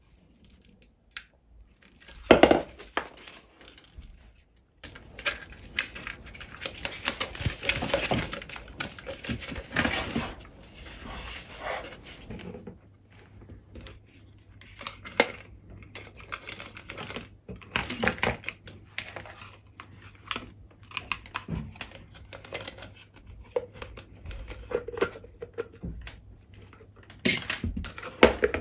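An adhesive LED light strip being handled and pressed around a plastic funnel: scratchy rustling, crinkling and peeling sounds with small clicks and taps. The busiest, loudest stretch comes in the first half, and the sounds are sparser after that.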